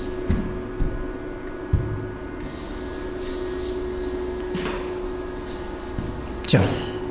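A hand rubbing back and forth across the glass of an interactive touchscreen board, erasing writing in a run of quick swishing strokes. There is a sharp knock against the board near the end.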